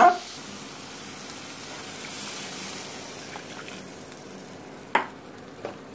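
Water poured from a small tumbler into a hot kadai of tomato–onion masala, a steady hiss that swells a little and then fades. One sharp knock about five seconds in.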